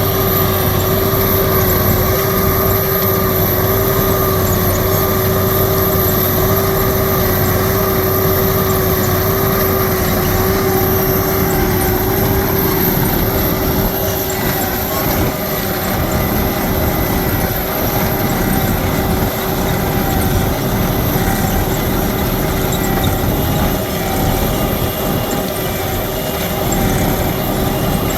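Buckeye 7200 wheel ditching machine running steadily while trenching for drainage tile: a constant heavy engine sound with a steady whine over it.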